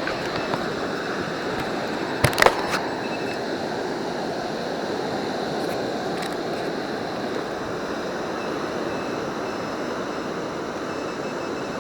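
Steady wash of surf and water, with a short cluster of sharp clicks about two and a half seconds in and faint short high beeps later on.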